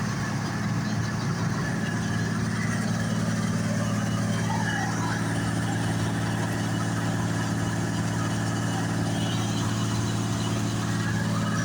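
John Deere combine harvester running steadily while harvesting barley: an even, unchanging engine and machinery drone.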